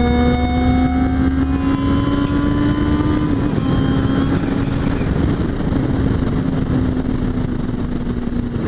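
Suzuki GSX650F's inline-four engine running at road speed, its pitch climbing steadily as the bike accelerates, dipping briefly about three seconds in, then holding steady. A constant rush of wind noise runs underneath.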